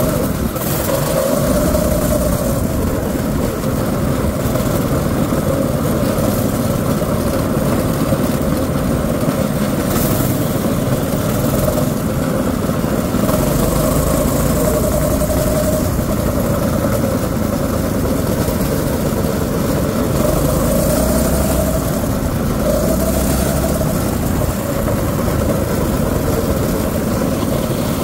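Predator 6.5 hp single-cylinder four-stroke engine on a drift trike running under way, its pitch rising and falling repeatedly as the throttle is opened and eased.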